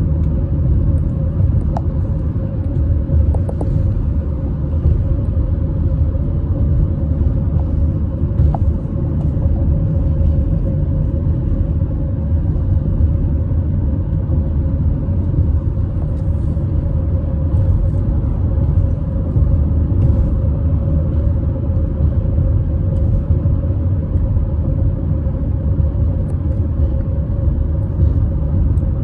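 Steady low rumble of a car on the move, road and engine noise heard from inside the cabin, with a faint constant drone.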